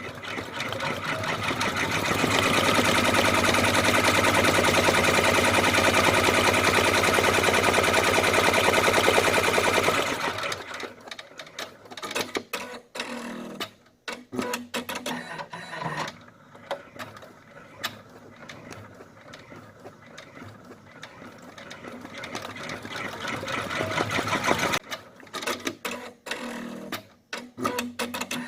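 Brother computerized embroidery machine stitching at speed: a fast, steady needle clatter that builds up over the first couple of seconds and stops about ten seconds in. After that come lighter, irregular mechanical clicks and taps, with a second run-up that cuts off sharply near the end.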